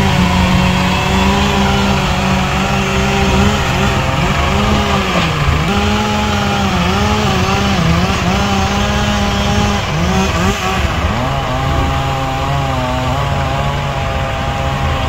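A chainsaw running, its pitch repeatedly dipping and rising. A Mahindra Arjun tractor's diesel engine runs steadily underneath.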